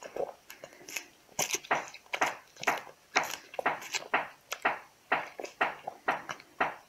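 A cat biting and chewing a raw cucumber, wet crunches at about two to three a second.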